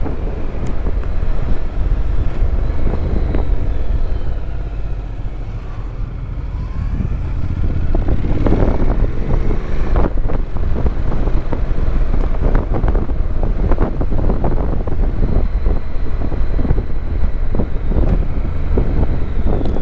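Honda NC750X parallel-twin engine running as the motorcycle rides along, mixed with wind noise on the microphone. The sound eases off around five to seven seconds in, then grows louder again.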